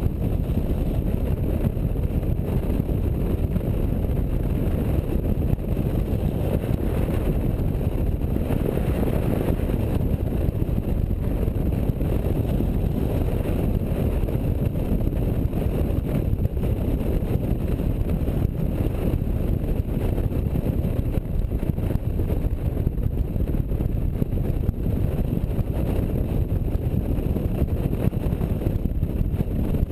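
Motorcycle riding at speed on the highway: a steady low rumble of engine, road and wind on the microphone that holds even throughout.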